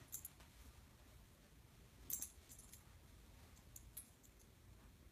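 Faint, scattered light clicks and small jingles from a dog moving about as it hides its bone, a few at a time over the hum of a quiet room.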